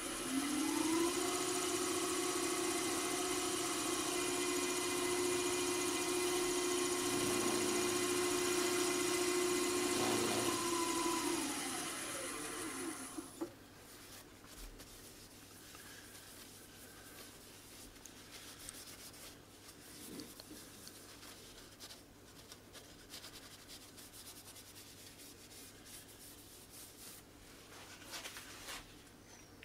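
Wood lathe spinning up in the first second, running steadily with a whine, then winding down and stopping about 13 seconds in. This is the lathe turning the piece for waxing and buffing. After it stops, only faint scattered handling ticks remain.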